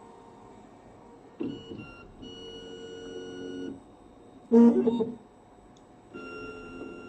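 Graphite furnace autosampler's stepper motors driving the sampling arm in a series of short moves, each a steady whine of several pitches lasting about a second. The loudest, shortest move comes about halfway through.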